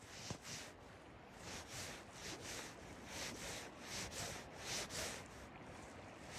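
Faint, repeated soft swishing rubs, often in pairs, over the low rush of the flowing river.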